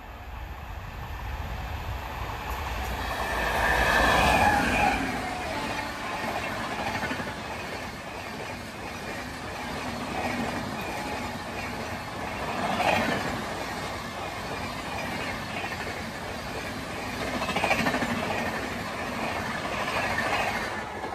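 Express passenger train hauled by a WAP7 electric locomotive passing at high speed: a continuous rush of wheels on rail with clickety-clack. It is loudest about four seconds in, then swells again several times as the coaches go by.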